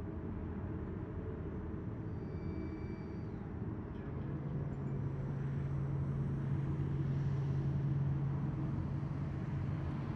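Low, steady rumble, with a deep steady hum joining about four seconds in and growing slightly louder.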